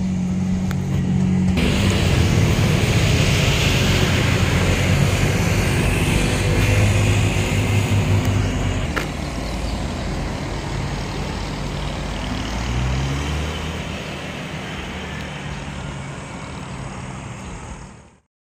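Street traffic: a heavy vehicle's engine running close by with road noise, louder in the first half, then easing off, with an engine revving up about two-thirds of the way in. The sound cuts out abruptly near the end.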